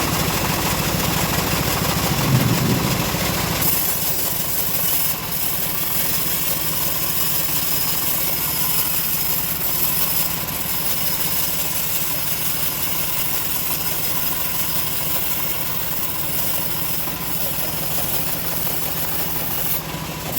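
The engine of a homemade bandsaw sawmill running steadily. About four seconds in, a high, steady hiss joins the drone.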